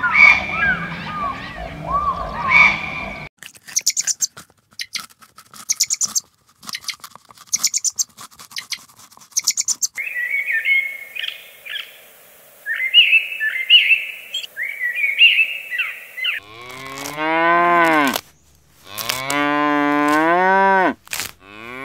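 A cow mooing: two long, loud calls that rise and fall in pitch, starting about two-thirds of the way in. Before them come short chirping calls and, for several seconds, a rapid run of clicks.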